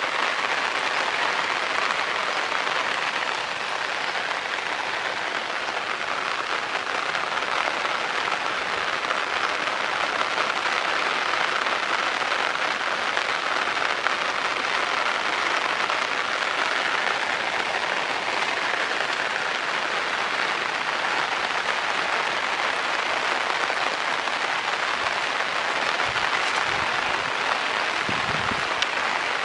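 Water running steadily down an open split guadua bamboo channel, an even rushing splash. A few low thumps near the end.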